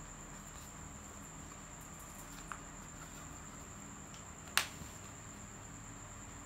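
A steady high-pitched whine, with a soft tick about two and a half seconds in and a sharp click about four and a half seconds in as a small fold-over wallet is folded shut by hand.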